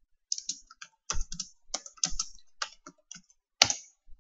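Typing on a computer keyboard: quick, uneven runs of keystrokes, with one heavier key press near the end.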